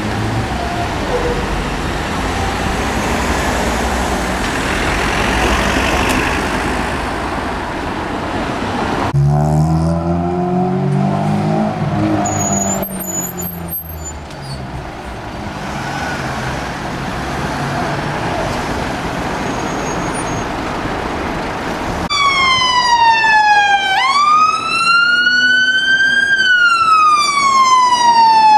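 Scania fire engine's diesel engine running and revving as it pulls away. About two-thirds of the way through, its two-tone-style wail siren comes on loud, sweeping slowly down, up and down again in pitch.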